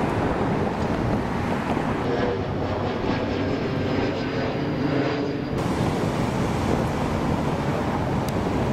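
Wind buffeting the camcorder microphone as a steady rushing rumble, with a faint droning hum from engines in the middle few seconds that cuts off suddenly.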